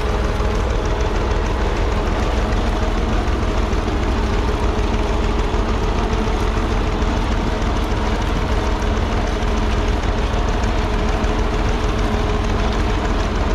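1943 Fordson Model N tractor's four-cylinder P4 diesel engine running steadily under a constant load.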